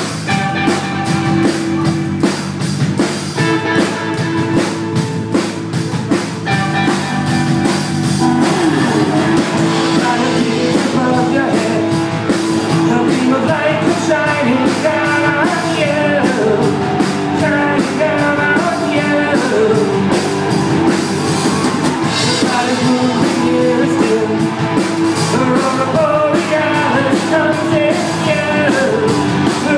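Live rock band playing: electric guitars over a drum kit keeping a steady beat, with a melodic line weaving above from about a third of the way in.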